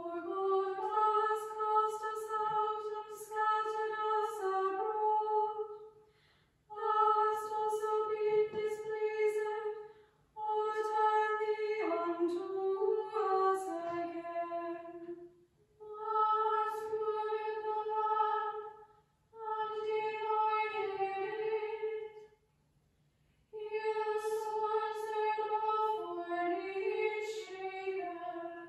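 Small women's choir singing a psalm in chant, in about six phrases. Each phrase holds mostly on one reciting note and then moves to a short cadence, with a brief pause for breath between phrases.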